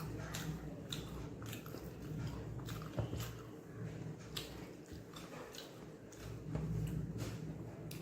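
A person chewing and eating chicken fried rice and egg podimas, with irregular wet mouth clicks and smacks.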